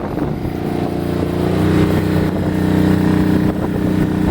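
Kohler gasoline marine generator running steadily, a little louder from about a second and a half in.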